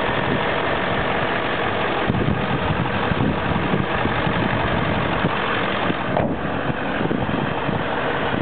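Ford 7.3 L Powerstroke V8 turbo diesel idling steadily, heard close over the open engine bay.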